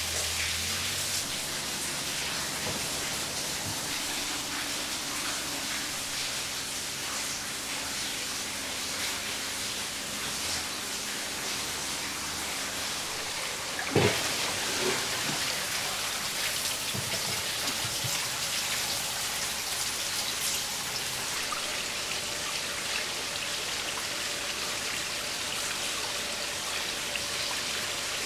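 Steady hiss of falling water, like rain. About halfway through comes a sharp clunk, with a couple of smaller knocks after it, as a ball valve on a white PVC water pipe is turned by hand.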